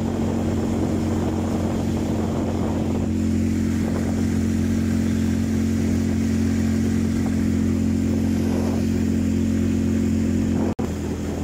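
A motor vehicle's engine running steadily while travelling along a road, a constant hum with road noise. The sound cuts out for an instant near the end.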